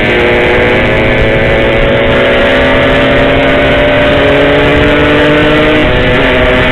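Yamaha RX-King two-stroke single-cylinder engine running while riding, its note steady and slowly easing lower in pitch over a low rumble.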